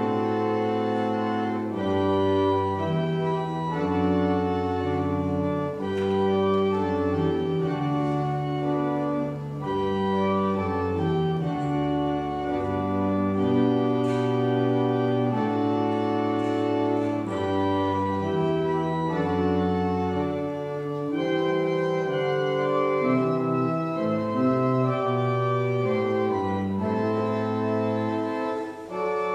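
Church organ playing a slow closing voluntary: sustained chords that change every second or two over a low bass line, at a steady level.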